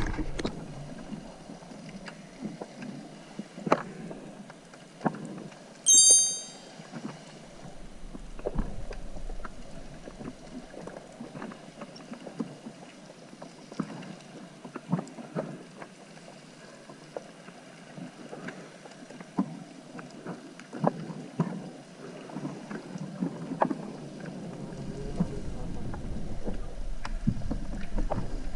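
Underwater ambience recorded by a submerged camera: a low wash of water noise with many scattered clicks and crackles, and one short high-pitched chirp about six seconds in. A low rumble comes back near the end.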